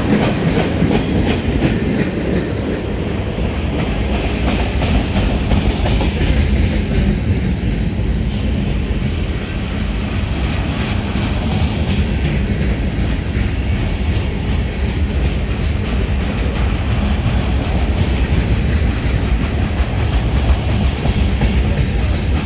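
Tank cars of a freight train rolling steadily past, their steel wheels clicking over the rail joints over a continuous low rumble.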